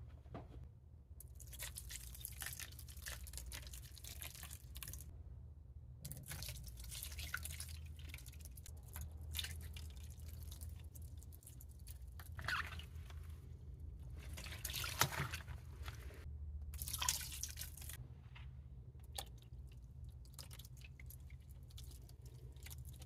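Liquid dripping and splashing during hand-dyeing of yarn. It comes in stretches of a few seconds with short pauses, and a few louder splashes, over a low steady hum.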